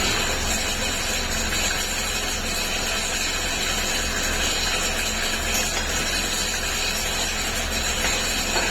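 Steady mechanical running noise: a constant low hum under an even hiss, with no pauses or changes.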